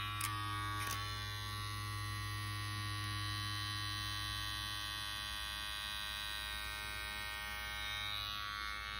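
BaBylissPRO hair clipper running, a steady electric motor hum, with two small clicks in the first second as it is handled.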